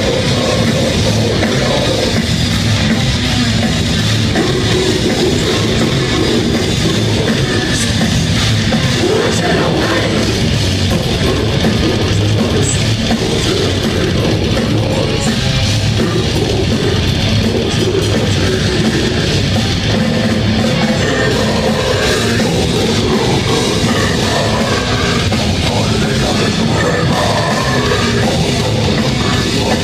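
Death metal band playing live at a steady loud level: distorted electric guitars, bass and a drum kit in a dense, unbroken wall of sound.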